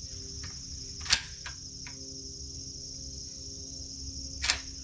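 Steady high-pitched cricket chirring, with a few sharp clicks and knocks: a loud one about a second in, two fainter ones just after, and another near the end.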